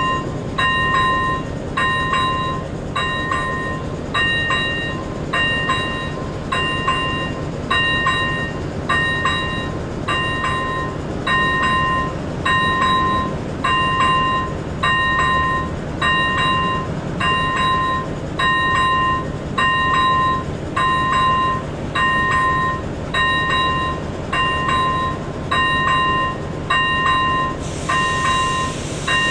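ZV-01 electronic level-crossing bell on AŽD 97 warning signals ringing a short ding about once a second, sounding while the crossing is active for an approaching train. A steady low hum runs underneath, with a brief hiss near the end.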